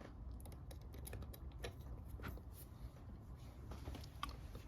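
Faint, irregular small clicks and taps of a bump key being handled as a rubber bumper ring is fitted onto it.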